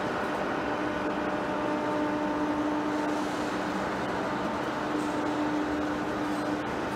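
Zhengzhou Jiesheng C6031 heavy-duty floor lathe running steadily as it turns a large workpiece: a continuous machine hum with a constant low tone over dense workshop noise.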